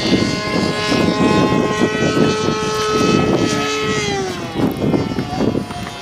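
Radio-controlled Cap 580 aerobatic model airplane in flight, its motor and propeller giving a steady drone whose pitch drops about four seconds in.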